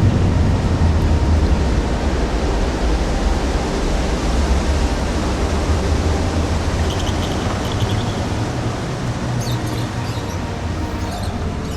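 Underground tunnel ambience: a steady hissing air tone over a low rumble that slowly fades, with faint high squeaks in short clusters about seven seconds in and again near the end.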